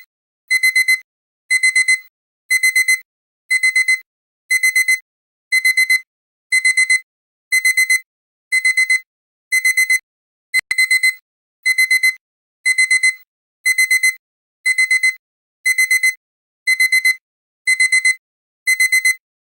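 Digital alarm-clock beeping: one high electronic tone in groups of about four quick beeps, repeating roughly once a second. It is the alarm that signals the countdown timer has run out.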